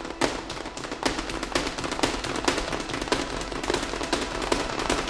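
A rapid, irregular clatter of sharp clicks and knocks, several a second, growing slowly louder.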